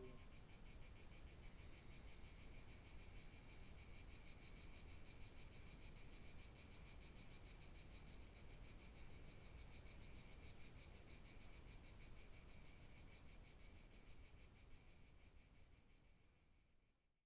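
Faint, high-pitched chirring of insects in a fast, even pulse, steady until it fades out near the end.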